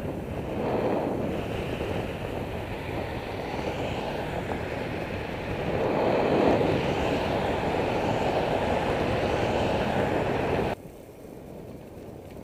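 Wind rushing over the microphone of a bike-mounted camera while riding on a road, mixed with road noise. It swells about six seconds in and cuts off suddenly near the end, leaving a quieter rush.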